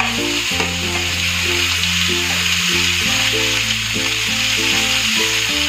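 Background music with held bass notes and a repeating melody, over the steady sizzle of onions and tomatoes frying in oil in a kadhai.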